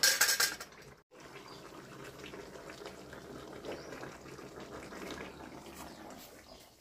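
Chicken curry sizzling and bubbling in a kadai on a wood-fired clay stove. Loud in the first second, then after a brief break a steadier, quieter sizzle.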